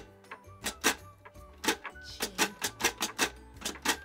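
Perkins Brailler being typed on: a quick, uneven run of sharp mechanical clacks as the keys are pressed and the embossing head punches braille dots into the paper. The strokes come faster and closer together in the second half.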